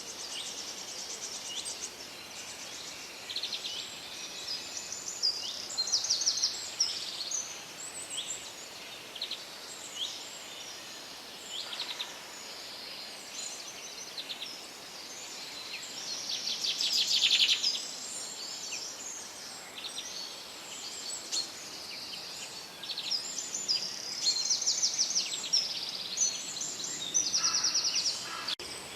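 Several birds singing and calling together, with short chirps and fast rattling trills one after another, over a faint steady hiss of forest background. The loudest is a long fast trill about halfway through.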